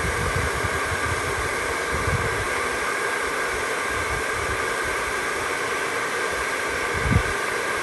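Electric hot-air gun blowing steadily, drying a wet paint test strip so its dry colour can be judged. There is a brief knock about seven seconds in.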